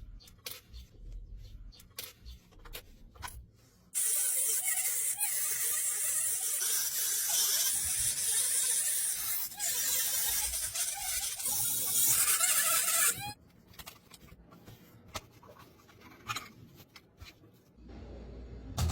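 A loud, steady hiss like a spray or a jet of air starts suddenly about four seconds in and cuts off after about nine seconds. Small clicks and knocks come before and after it.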